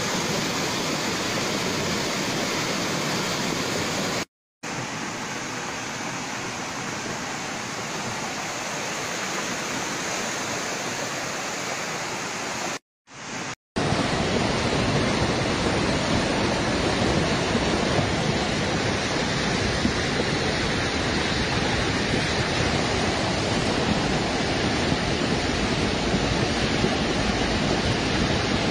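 Flash-flood water rushing through a street: a steady, dense rush of water noise. It cuts out to silence twice, briefly about four seconds in and again around thirteen seconds, and comes back a little louder after the second gap.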